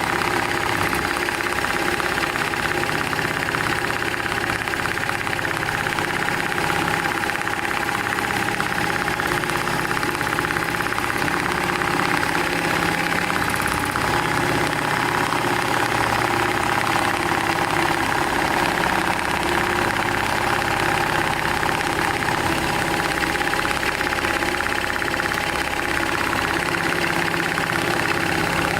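Programmable profile-stitcher sewing machine running continuously: an even mechanical hum with a constant whine.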